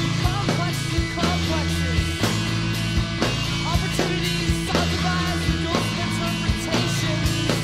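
Emo/post-hardcore band music: electric guitar and bass over a drum kit keeping a steady beat, in an instrumental stretch without vocals.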